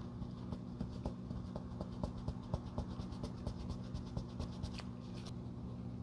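Cotton swab scrubbing stain remover along the edge of a black leather loafer: a quick run of short, scratchy rubbing strokes that stops about five seconds in, over a steady low hum.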